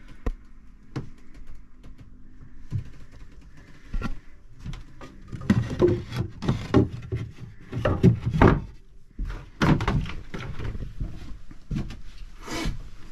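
Irregular thumps and knocks of people moving about and handling things inside a small sailboat cabin, busiest from about five to ten seconds in.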